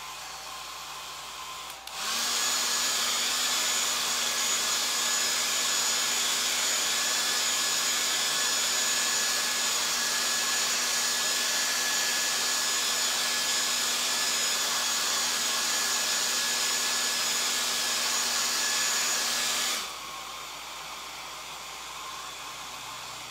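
Handheld hair dryer blowing steadily over chalk paste on a silk-screen transfer, with a motor hum and a thin whine. It runs at a quieter setting at first, steps up to a much louder blow about two seconds in, and drops back to the quieter level near the end.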